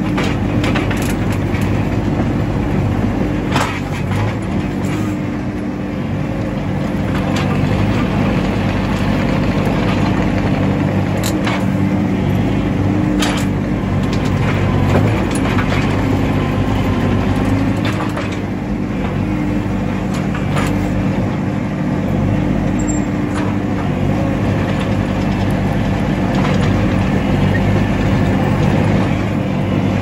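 Skid steer engine running steadily as the machine works a fork-mounted rake over soil and brush, with a few sharp knocks and clacks from the attachment and sticks.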